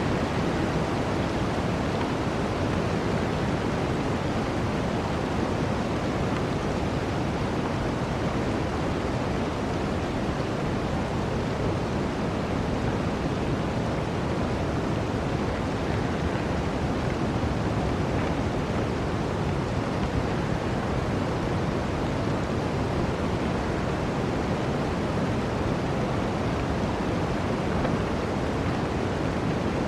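Steady rushing of flowing water, an even unbroken wash with no distinct splashes.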